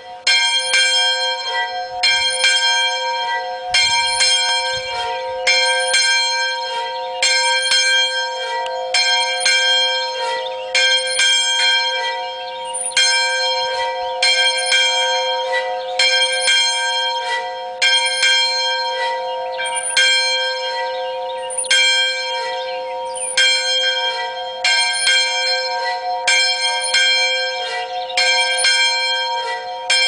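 A single church bell ringing. It is struck about every second and a half to two seconds, and its tone rings on and overlaps from one stroke to the next.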